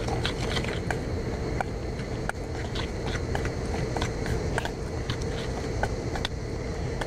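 Metal spoon stirring a dry spice rub in a stainless steel bowl, the spoon scraping and clicking irregularly against the bowl, over a steady low background rumble.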